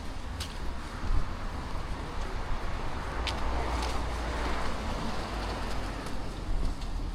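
Outdoor walking ambience: scattered footsteps on a leaf-strewn path over a low rumble, probably wind on the action camera's microphone. A broad swell of noise rises and fades around the middle.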